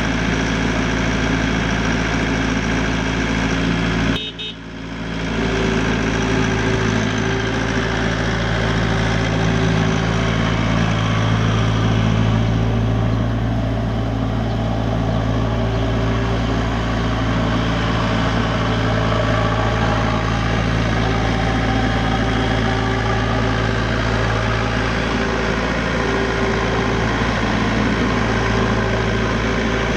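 Ditch Witch RT45 trencher's 49 hp Deutz diesel engine running steadily. The sound drops out sharply about four seconds in and comes back within a couple of seconds.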